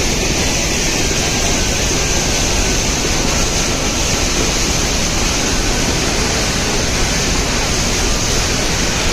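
Dhuadhar Falls on the Narmada River: a loud, steady rush of falling water, even and unbroken.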